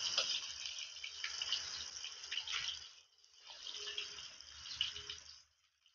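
Breaded fish fillets deep-frying in a wok of hot oil: a steady sizzle with crackling pops. The sizzle dips briefly about three seconds in and fades away near the end.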